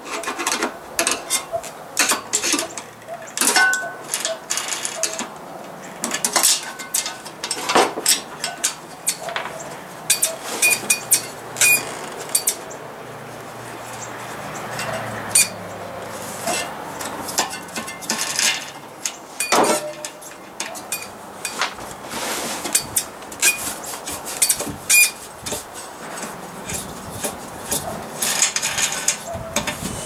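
Scattered metal clinks and taps as the thumb screws holding a kerosene heater's wick holder are worked loose and taken out, with the screwdriver and screws knocking against the heater's metal parts at irregular intervals.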